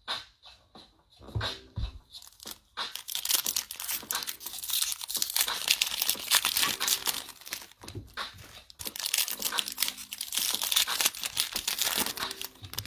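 Foil wrapper of an NBA Hoops trading-card pack being torn open and crinkled by hand, a crackling rustle that starts about three seconds in, breaks off briefly about eight seconds in, then goes on.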